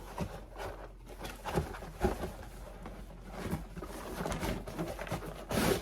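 Unboxing handling noise: rustling packaging and irregular light knocks and clunks as the vacuum's parts are lifted out of the box.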